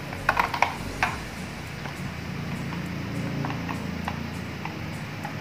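Plastic clicks and knocks from a full-face motorcycle helmet shell and its spoiler being handled during fitting: a quick cluster of sharp clicks in the first second, then a few light ticks.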